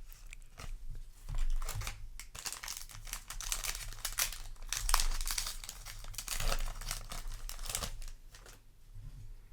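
Foil booster pack wrapper crinkling and rustling in irregular bursts as the pack and its cards are handled.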